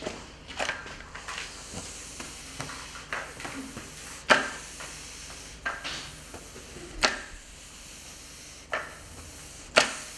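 Roller sponge mop sliding over ceramic floor tiles with a hissing swish, its plastic head knocking on the tiles in sharp, irregular clacks about every second or so, the loudest a little past four seconds in and near the end.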